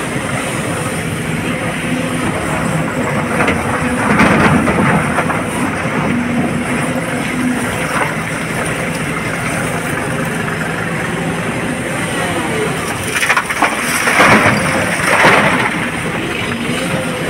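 SANY excavator's diesel engine and hydraulics running steadily under load, with a hydraulic whine that rises and falls as the arm moves. Crunching and rattling of broken rock as the bucket digs, about four seconds in, and louder crashes of stone dropping into a dump truck's bed near the end.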